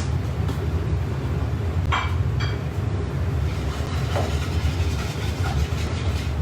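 Steady low rumble of running kitchen machinery, with a few light clinks of utensils about two seconds in and again a little after four seconds.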